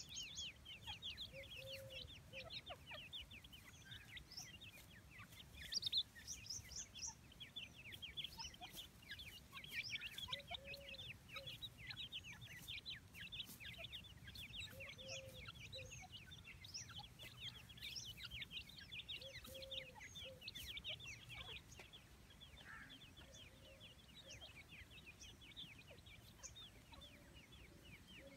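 Grey francolins foraging, giving soft, low clucks every few seconds, over a continuous fast, high-pitched chirping.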